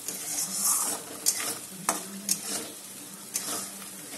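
Spatula stirring a thick spice paste sizzling in oil in a metal kadai, with several sharp scrapes of the spatula against the pan. The masala is being fried down until the oil separates.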